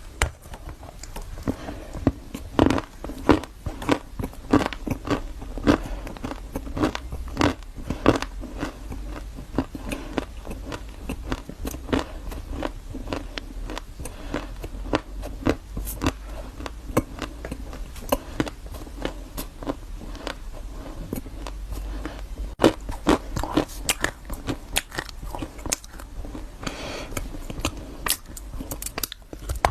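A person biting into and chewing a crunchy, crumbly chocolate dessert, with many sharp, irregular crackles and crunches.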